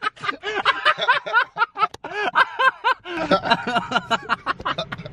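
Men laughing hard in quick, repeated bursts.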